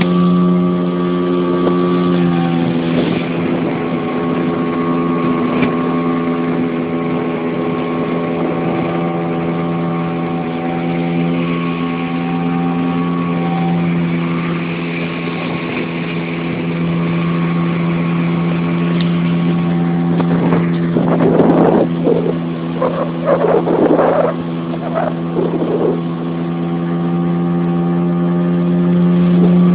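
Small motorboat's engine running steadily at speed under way, a constant drone over the rush of wind and water. Between about twenty and twenty-six seconds in, uneven gusts of noise break in over the engine.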